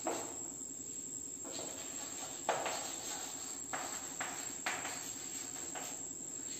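Chalk writing on a chalkboard: irregular short taps and scratchy strokes, roughly one every half second to a second, over a steady high-pitched whine.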